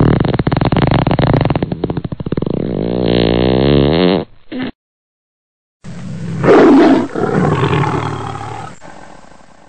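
Big cat growling, a rough pulsing growl for about four seconds. After a short silent gap comes a loud roar that then fades away.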